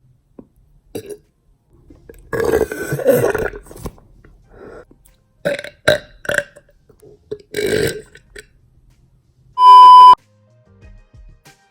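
A person burping loudly several times from drinking a bottle of fizzy soda: one long burp, then a quick run of three short ones and another longer one. About ten seconds in, a loud steady beep sounds for about half a second.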